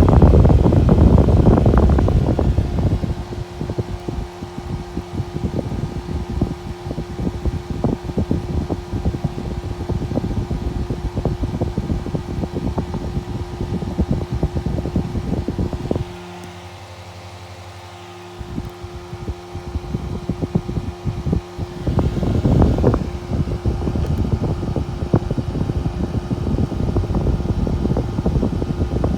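Panasonic microwave oven cooling fan running very fast, a steady hum over a rush of moving air. The air rush is loudest at the start and again briefly about two-thirds through, with a quieter stretch of a couple of seconds just past the middle.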